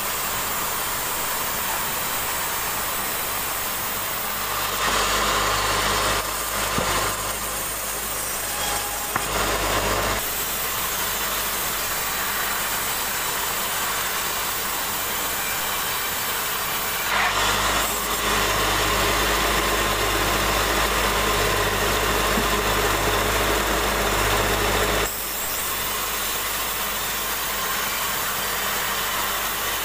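Sawmill running steadily as a log is fed past the blade, the machine noise growing louder while the saw is in the cut, about five to ten seconds in and again from about seventeen to twenty-five seconds.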